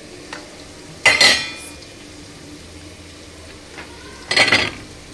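A stainless steel pan clanks down onto a gas stove's burner grate about a second in and rings briefly. Near the end, raw potato wedges drop into the steel pan with a short clatter.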